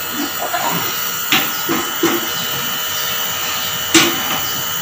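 Electric nebulizer's compressor running steadily during a treatment, with two sharp clicks, one about a second in and one near the end.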